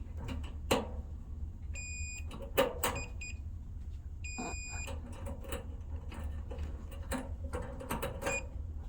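Multimeter continuity tester beeping as its probes touch and scrape on metal inside the dryer: two half-second beeps, about two and four and a half seconds in, with a few shorter chirps and probe clicks between them. Each beep marks a closed circuit through the metal the probes touch.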